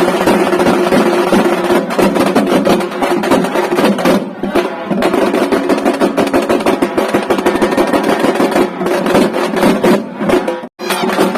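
Traditional festival music: loud, fast drumming over a held melody line. The sound cuts out for an instant near the end.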